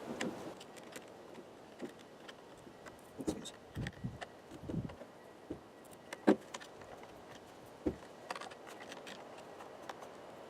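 Scattered light clicks, clinks and knocks of tools and small metal parts being handled, with a sharper knock about six seconds in.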